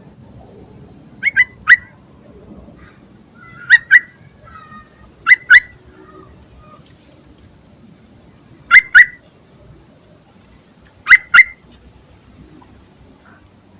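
Yellow-vented bulbul (trucukan) giving short, sharp two-note calls, five pairs a couple of seconds apart.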